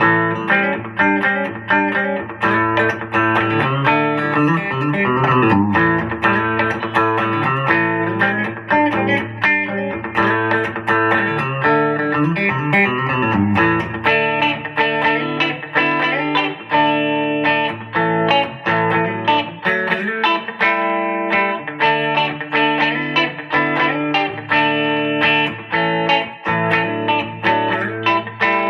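Electric guitar played through an amplifier: a continuous tone sample of picked chords and single-note lines, with sliding notes about four seconds in and again about twelve seconds in.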